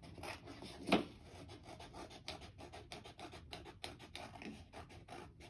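Scissors cutting out a circle from a sheet of paper: a run of short snips and paper rustling, the loudest about a second in.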